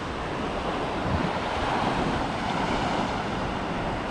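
Surf washing onto the beach in a steady rush, with wind buffeting the microphone.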